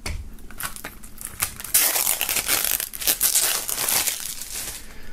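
Plastic shrink wrap crinkling and tearing as it is pulled off a CD jewel case. It is loudest for a couple of seconds in the middle.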